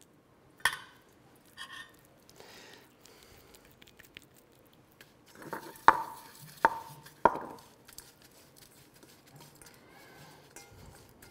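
Kitchen crockery and utensils clinking: a couple of light knocks, then about halfway through three sharp ringing taps roughly two-thirds of a second apart, like a utensil tapping a bowl.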